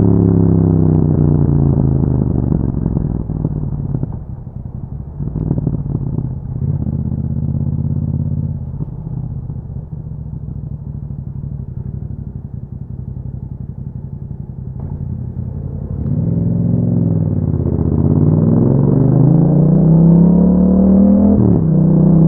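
Yamaha MT-07 parallel-twin engine through an Akrapovic exhaust. The revs fall over the first few seconds, then it runs low and steady for about ten seconds. From about sixteen seconds in, the revs dip and then climb hard, with a short break in the rising pitch near the end before it climbs again.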